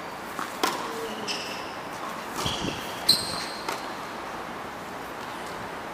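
Tennis ball being struck by racquets and bouncing on a hard court during a rally: a series of sharp knocks, the loudest about three seconds in, with short high squeaks between some of them. The last two seconds are quieter.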